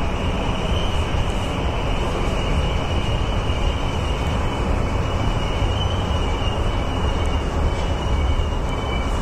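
Tokyu 3020 series electric train running on rails, heard from the driver's cab: a steady heavy rumble from wheels and running gear with a steady high whine above it that breaks into several close tones near the end, as the train moves off from a station.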